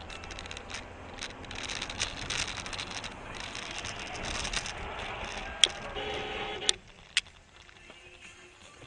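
Car cabin and road noise picked up by a dashcam, with rattling. A few sharp knocks come in the second half, and the noise drops off abruptly near seven seconds.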